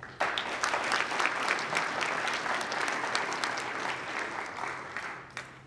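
Audience applauding. The clapping starts abruptly and dies away over about five seconds.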